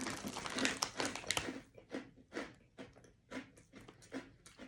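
A person chewing a crunchy coconut-and-peanut snack with the mouth close to the microphone: a dense run of crunching for the first second and a half, then steady chews about twice a second.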